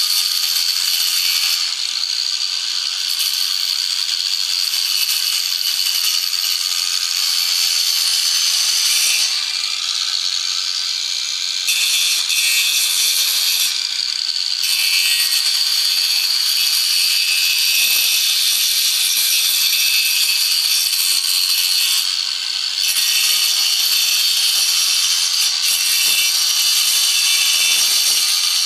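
A tool cutting into wood while an airgun stock is shaped, giving a continuous high-pitched scraping noise whose texture shifts every few seconds.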